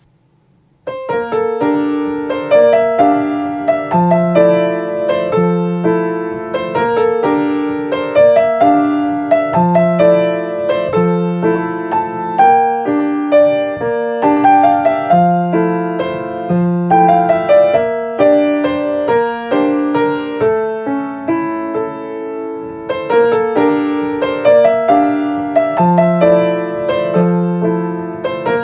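Solo piano playing an original piece. A melody runs over a repeating chordal accompaniment with low bass notes, and the phrases recur every few seconds. It starts about a second in.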